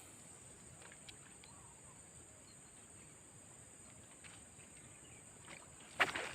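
Faint steady high-pitched drone of swamp insects, with a sudden loud splash of water near the end.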